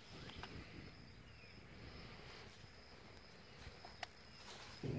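Faint outdoor insect sound: a steady high drone, with a few faint ticks.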